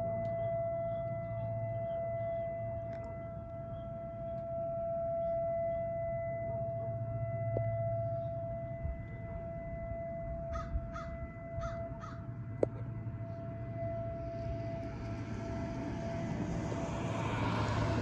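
Tornado warning siren holding one steady tone. Crows caw four times about ten to twelve seconds in, and a passing vehicle swells in near the end.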